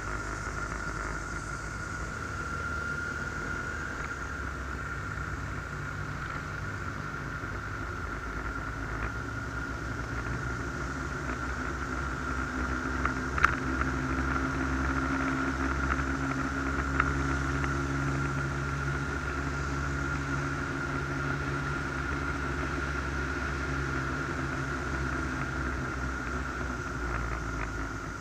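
Motorcycle engine running at a steady cruise with road and wind noise and a steady high whine, getting a little louder around the middle. A couple of sharp ticks about halfway through.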